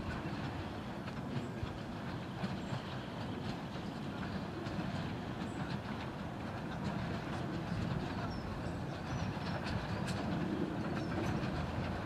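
Quarry Hunslet 0-4-0 tank steam locomotive working a train toward the listener, the sound growing louder toward the end, with scattered clicks and rattles.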